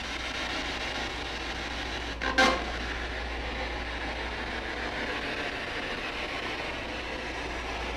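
Ghost-hunting spirit box scanning radio frequencies: a steady hiss of static with a low hum underneath, broken by one brief, louder blip about two seconds in.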